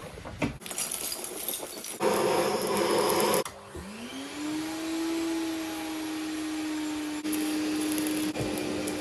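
A vacuum cleaner used as a blower for a coal forge. A loud rush of air cuts off after about a second and a half, then the motor spins up with a rising whine that settles into a steady hum, pushing air into the fire.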